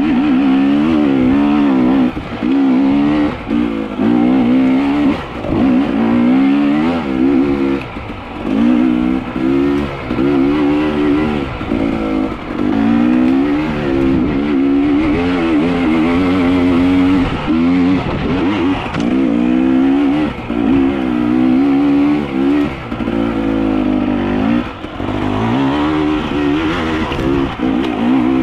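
A vehicle engine running hard and revving up and down over and over, its pitch rising and falling about every second or two, with brief drops in loudness between pulls.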